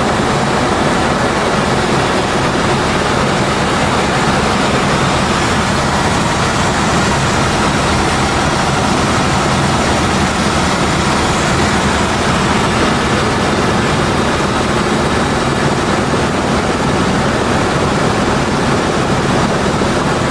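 Helicopter in flight heard from inside the cabin: a loud, steady low engine and rotor hum under a rushing hiss of air, unchanging throughout.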